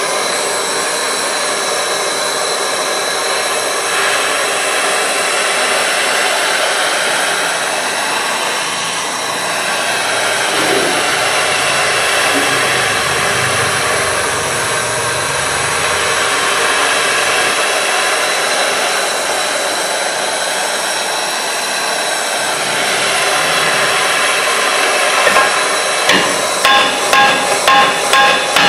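Gas torch flame hissing steadily as it heats a rusted, seized rear brake drum on a 1970 VW Variant. Near the end a hammer raps the hot drum quickly, about three ringing metallic strikes a second, to shake it loose from the stuck shoes.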